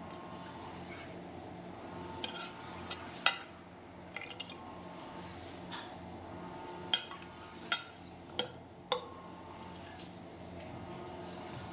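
Irregular kitchen clatter: a dozen or so sharp clinks and knocks of utensils and dishes being handled, over a steady low hum.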